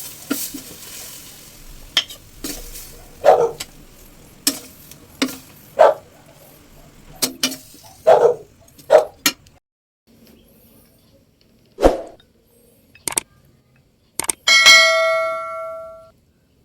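A metal utensil knocking and scraping against a cooking pan in irregular strokes during stirring, over a faint sizzle that fades out. After a few isolated clicks, one metal clang rings out about three-quarters of the way through and dies away over a second or so.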